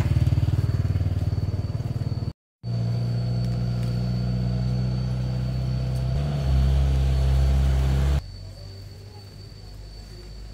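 A motor vehicle engine running steadily. It cuts out completely for a moment a little over two seconds in, then drops away suddenly to a much quieter background about eight seconds in.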